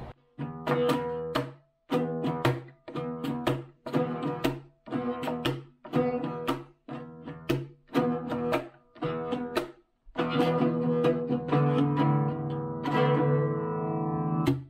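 Child's small acoustic guitar strummed across its open strings, giving a string of short strums broken by sudden silences, then about four seconds of continuous strumming that rings on and cuts off abruptly.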